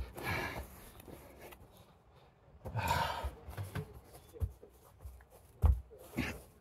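A person breathing hard from exertion during ab exercises, with a couple of low thumps of the body moving on the floor.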